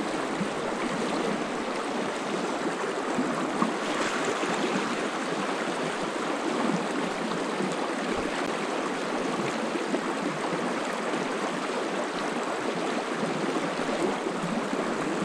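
Freestone stream running over rocks in shallow riffles: a steady, even rush of moving water.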